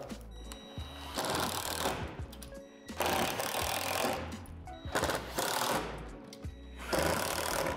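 Cordless impact driver running in four short bursts, driving screws through plastic barrier panels into the handrail supports. Background music plays underneath.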